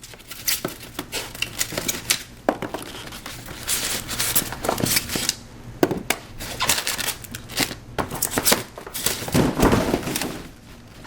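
Packaging being handled as a toy RC truck is freed from its box: crinkling and rustling of plastic and cardboard, with many irregular clicks and knocks.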